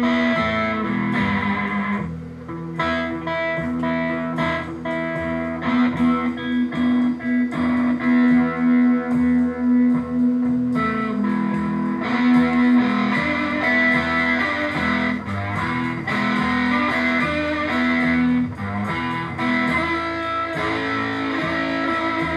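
Recorded guitar music playing through a Magnavox 9304 tube amplifier with EL84 output tubes, fed from an iPod, as a listening test after a power-transformer replacement. The loudness pulses with a steady beat.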